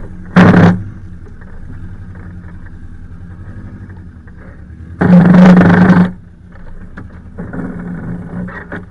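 Subaru Forester S/tb's engine running at low speed as the car pulls through dirt ruts on mud-terrain tyres. Two loud rushing surges break the drone, a short one about half a second in and a longer one of about a second around five seconds in.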